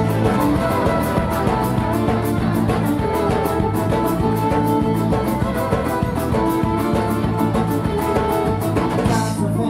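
Live folk-rock band playing an instrumental passage between sung lines: plucked or strummed guitar over bass and a steady beat.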